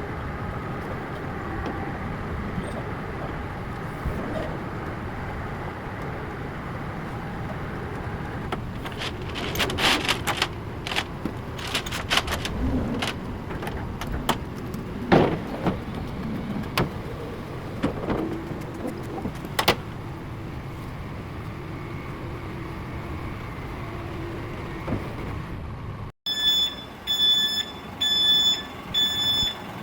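Forklift engine running steadily, with a series of sharp metallic clanks and knocks through the middle. Near the end, after a cut, the forklift's reversing alarm beeps regularly, a little faster than once a second.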